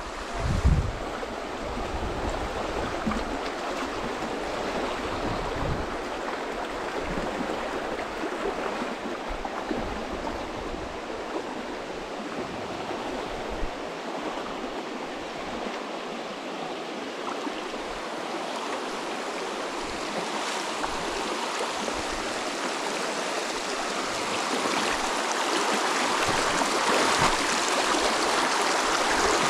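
Shallow, rocky mountain creek running over stones and riffles, a steady rush of water that grows somewhat louder near the end.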